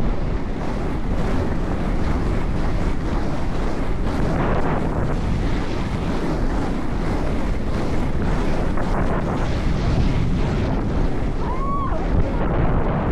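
Wind buffeting the microphone of a camera on the move, a loud steady rushing noise. A short tone rises and falls once near the end.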